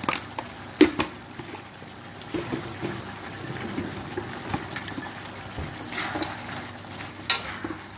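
Meat in sweet soy sauce bubbling and simmering in a wok, the sauce cooking down until the oil separates. A few sharp knocks of a utensil on the wok near the start, and a spatula stirring and knocking against the pan about six seconds in.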